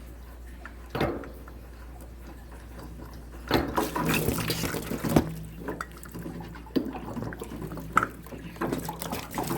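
Water spilling and trickling at an opened fitting on a water heater tank, with a knock about a second in and denser clatter of parts being handled from about three and a half seconds on.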